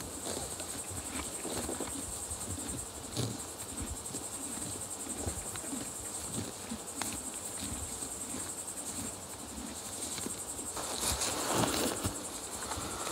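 A horse grazing close by, tearing and chewing grass in irregular crunching clicks, with crickets trilling steadily in the background. About three-quarters of the way through the insect trill stops and a louder rustle follows.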